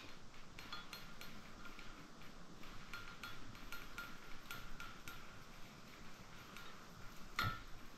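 A stirring stick clinking and scraping against the inside of a glass measuring cup as orange liquid plastisol is stirred: faint, repeated light ticks, each with a short glassy ring, and one sharper knock about seven seconds in.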